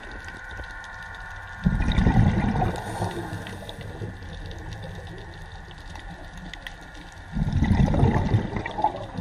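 A scuba diver breathing out through the regulator underwater: two rushes of bubbles, about two seconds in and again near the end, with quieter underwater crackle in between.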